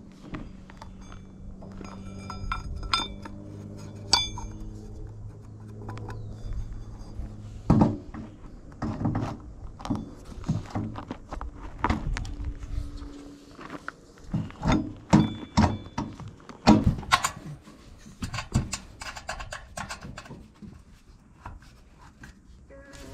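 Irregular metal knocks and clinks as a go-kart rear wheel, chain sprocket and brake drum are handled and slid onto a threaded steel axle, with a few brief ringing clinks about three to four seconds in.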